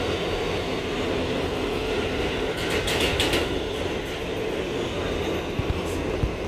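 New York City Subway R211T car running through the tunnel, heard from inside the car as a steady rumble and rattle, with a brief cluster of sharp clicks about three seconds in.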